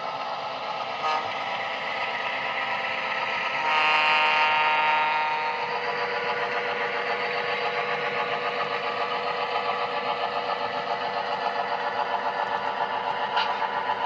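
Model Great Northern F-unit diesel locomotives' onboard sound playing: a multi-tone diesel horn blast about four seconds in, then a steady, pulsing diesel engine rumble as the units pull away.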